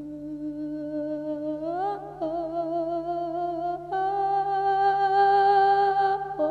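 A chanting voice in Isan lae style holding a long wordless sung note. It glides up about two seconds in, then steps up higher and louder about four seconds in, over a steady low drone.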